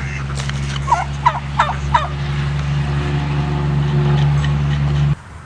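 A turkey gobbling, a quick run of four notes about one to two seconds in, over a steady low motor hum that cuts off abruptly near the end.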